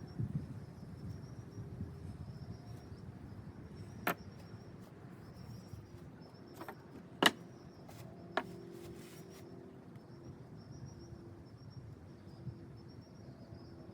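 Faint, steady pulsing insect chirps, with three sharp clicks or knocks from handling; the loudest click comes about seven seconds in.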